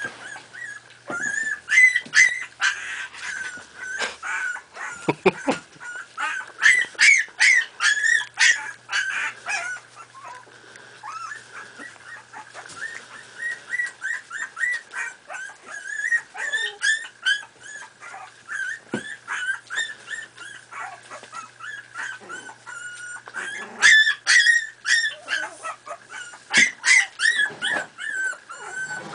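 Miniature pinscher puppies, about four and a half weeks old, whimpering and yipping as they play-wrestle. Many short high-pitched cries overlap, with busier flurries a couple of seconds in, around seven to nine seconds, and again near the end.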